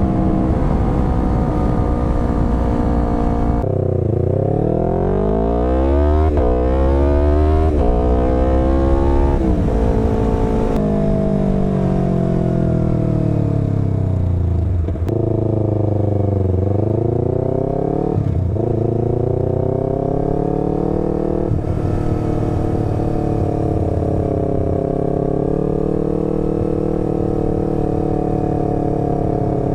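Yamaha R3 321 cc parallel-twin engine through a full Akrapovic exhaust, heard while riding. It holds steady at first, then revs up hard through several quick gear changes with rising pitch, and falls and rises again before settling into a steady cruise near the end.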